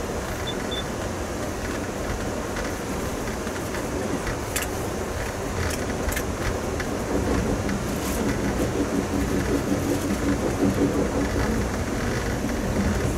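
Steady rumble and rattle of a passenger train rolling along the track, heard from inside a coach of Amtrak's Coast Starlight. A few sharp clicks come from the wheels in the middle, and the noise swells about halfway through.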